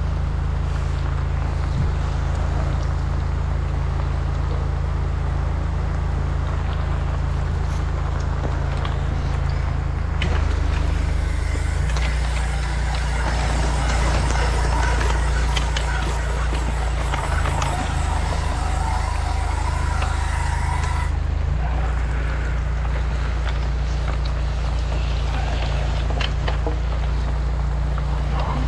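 Engine of a high-pressure drain jetter running steadily while its jetting hose is worked in a storm-water pit. From about ten seconds in to about twenty-one seconds the engine note changes and a loud hiss rises over it, then drops away again.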